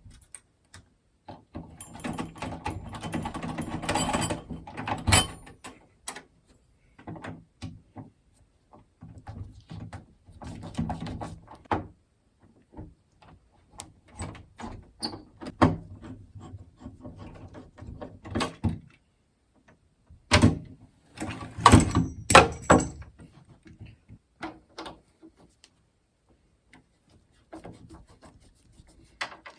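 An old doorknob's metal hardware clicking, rattling and knocking as it is worked loose and taken off the door. A stretch of rattling comes in the first few seconds, and a cluster of louder knocks about two-thirds of the way in.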